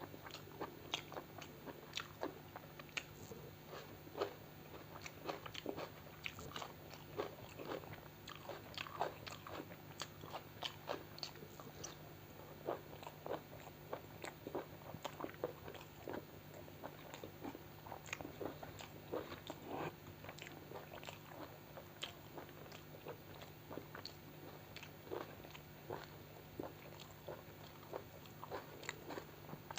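Close-miked eating sounds: a person biting and chewing food, with many short irregular wet clicks and occasional crunches, several a second. A faint steady low hum runs underneath.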